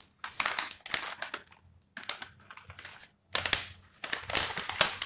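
Paper takeaway bag crinkling and rustling in spells as it is handled and turned over in the hands, loudest in the second half.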